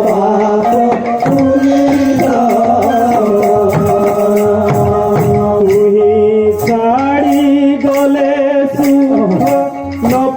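Kirtan devotional music between sung lines: a held, wavering melody over steady percussion with jingling, rattle-like strokes.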